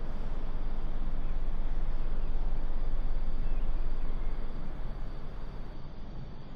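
Steady low rumble of outdoor background noise, heaviest in the deep bass, easing off near the end.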